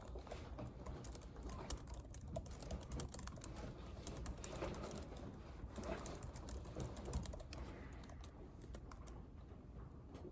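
Typing on a computer keyboard: a steady run of irregular, quick keystroke clicks, over a low, steady background hum.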